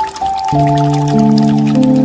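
Slow instrumental music with long held chords, a new chord entering about half a second in, over a light background of rain with scattered drips.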